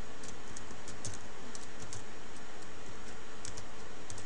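Computer keyboard keys typed in short, uneven runs of about ten keystrokes, over a steady background hiss.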